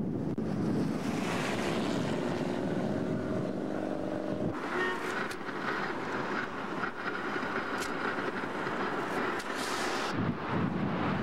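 Steady roar of a nearby tornado's winds, a dense rushing noise that changes abruptly about four and a half seconds in.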